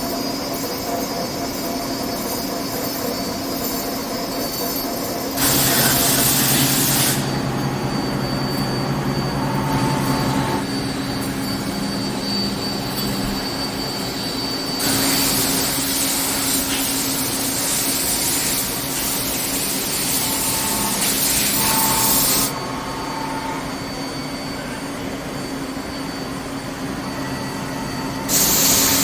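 Machine-shop machinery running steadily with a hum. A loud rushing noise cuts in and out suddenly three times, about five seconds in, for several seconds in the middle, and again near the end.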